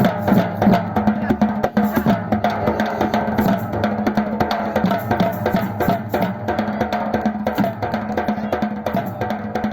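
Batucada percussion group playing drums together in a dense, driving rhythm without a break.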